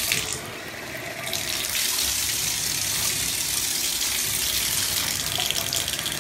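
Water running and splashing in a bathtub as the tub is rinsed down with a plastic cup, washing off sprayed-on all-purpose cleaner. Steady, slightly softer for about the first second.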